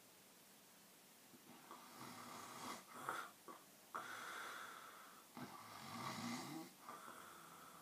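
Snoring: several breaths in a row, the first starting about a second and a half in.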